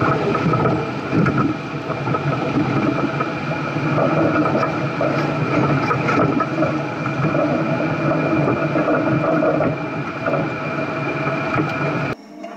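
Off-road 4x4 engine running under load as the vehicle crawls up a rocky desert trail, with a steady high whine over it; the sound cuts off suddenly near the end.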